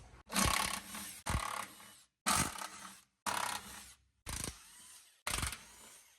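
A rapid series of short workshop sounds, each starting with a sharp metallic clank or knock and cut off abruptly, about one a second: hand tools and steel parts being worked on a Jeep's underside.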